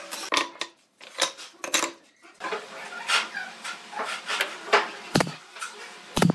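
Wooden slats and boards clacking and knocking as they are handled, then two sharp bangs about a second apart near the end from a pneumatic brad nailer firing into the wood.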